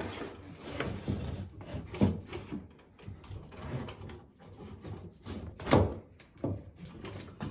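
Handling noise as the heating mat's metal-mesh-reinforced lead wire is pulled out through the wall: irregular rubbing and scraping with scattered knocks, the loudest knock near six seconds in.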